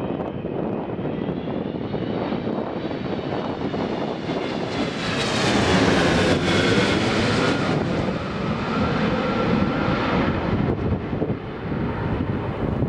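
Boeing 777-200ER on final approach, gear down, passing low overhead. The noise of its two turbofan engines builds to a peak about halfway through, with a whine that slides down in pitch as it goes over, then fades as the jet flies away.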